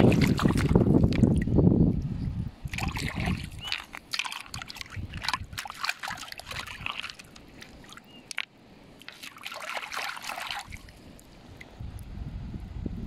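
Shallow river water splashing and sloshing as a hand stirs, rubs and lifts stones on the riverbed, with a few light clicks of stone. A low rumble in the first two seconds dies away.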